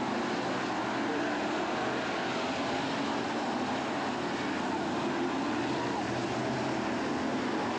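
BriscA F1 stock cars' V8 engines running at racing speed round the oval, a steady, dense engine noise from several cars at once with no let-up.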